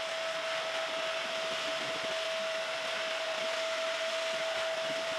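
Handheld vacuum cleaner running steadily, a constant motor whine over the hiss of rushing air, as its nozzle sucks up sanding dust from an acrylic shower pan.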